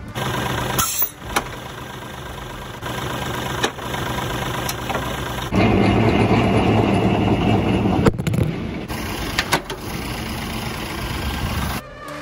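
Lorry's diesel engine running steadily, louder and fuller for a couple of seconds in the middle, with a few sharp knocks.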